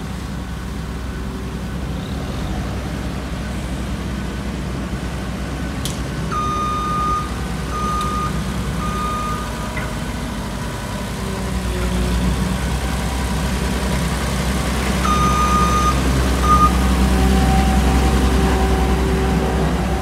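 Road roller engines running with a steady low rumble while compacting fresh asphalt. A reversing alarm beeps three times about six seconds in and twice more around fifteen seconds.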